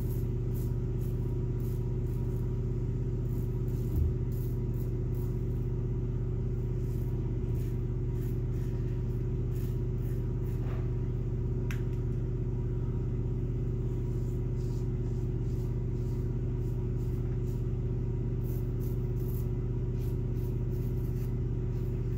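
Short, faint scratchy strokes of a Wolfman WR-2 1.55 mm solid-bar double-edge safety razor cutting stubble against the grain on the neck, over a louder steady low machine hum.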